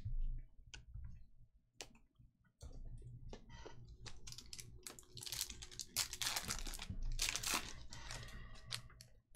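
A foil trading-card pack (Panini Hoops Premium Stock) torn open by hand, with its wrapper crinkling and crackling in a run of tears through the second half, after a couple of light taps.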